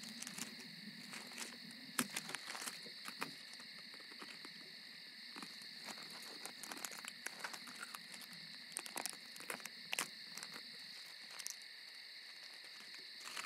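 Night-time ambience of crickets chirring steadily, with scattered faint clicks and taps.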